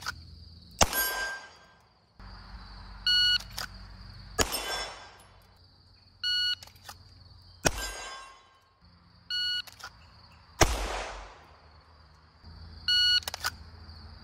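A CZ Shadow 2 9 mm pistol fires single shots from the holster, each about a second after an electronic shot-timer beep. The beeps and shots alternate, five shots and four beeps, about three seconds apart. A short ring from the steel target follows a couple of the shots.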